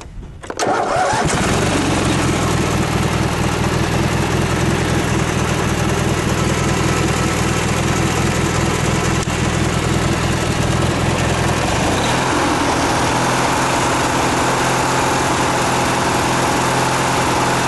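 Ranch King riding lawn mower engine catching about a second in and then running steadily. Its note changes about twelve seconds in.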